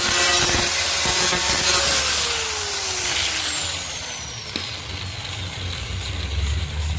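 A handheld power tool sanding the plastic bumper. About two seconds in it is switched off and its motor winds down with a falling whine over a few seconds.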